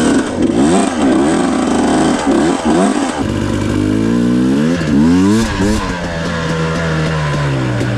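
Two-stroke dirt bike engine being ridden, its pitch repeatedly rising and falling with the throttle. The note changes about three seconds in and settles steadier and lower near the end.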